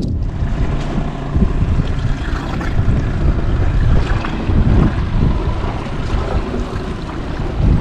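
Wind buffeting the microphone on a fishing boat trolling through choppy water, the gusts rising and falling, with waves slapping and the boat's motor running low underneath.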